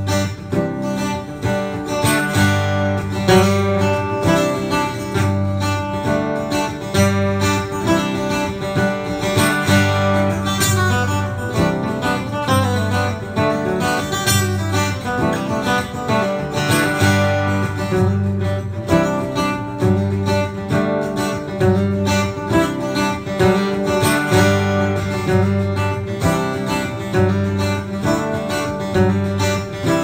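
Acoustic guitar music with a steady, even rhythm.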